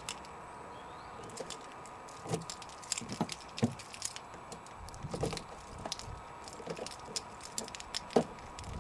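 Irregular small clicks and knocks from a car door lock being picked, a 2000 Renault Scenic's, worked with a tension tool and pick.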